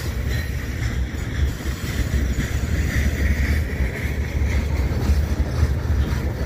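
Freight train cars rolling past: a steady low rumble of wheels on the rails, with some wind noise on the microphone.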